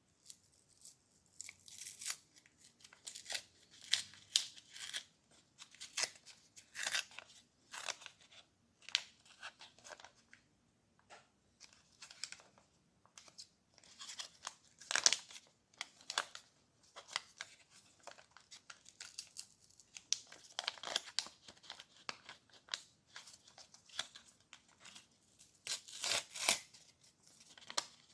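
Packaging being handled, crinkled and torn in irregular sharp bursts with short pauses.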